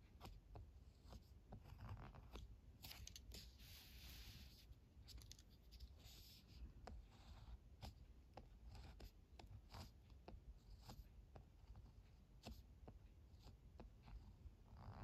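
Faint scratching of a ballpoint pen tip on paper as kanji strokes are written. Each stroke is a short scrape or tick, and a longer scratchy stroke comes about four seconds in.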